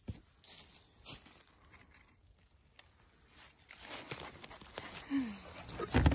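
Footsteps through dry leaf litter and twigs, with crackling and rustling of undergrowth, growing louder in the second half and ending with a heavier thump.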